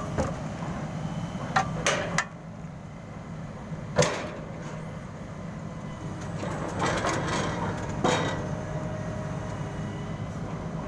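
Rotary bored-pile drilling rig's engine running steadily, with a handful of sharp metal clanks as the steel drilling bucket is swung in and knocks against the rig; the loudest clank comes about four seconds in.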